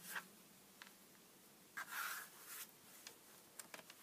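Faint handling of small pieces of card: a soft rustle about two seconds in and a few light clicks.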